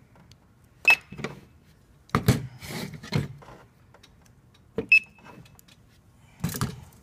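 Handheld barcode scanner beeping twice, about a second in and again about five seconds in, as it reads hard-drive labels. Between the beeps come short knocks and clatter of metal-and-plastic server drive caddies being handled and set down on a table.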